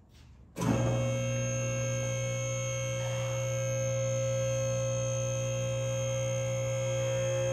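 A steady hum of several held tones, starting suddenly about half a second in and running on unchanged.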